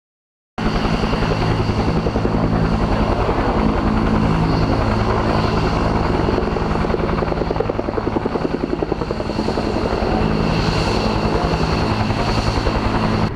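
Helicopter flying close, its rotor giving a fast, steady chop over a low turbine drone. It cuts in suddenly about half a second in, after a moment of silence.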